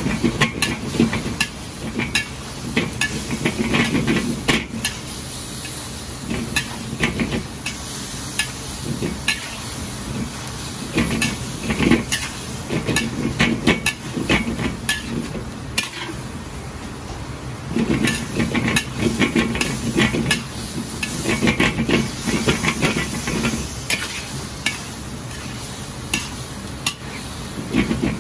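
Sliced pork belly sizzling in a large wok while a metal ladle scrapes and clacks against the wok in spells of stir-frying, with quieter pauses between.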